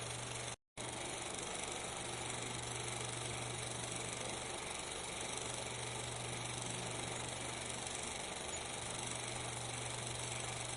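Steady hiss with a low hum underneath and no separate events, the background noise of a silent 16mm film transfer. It cuts out completely for a split second about half a second in.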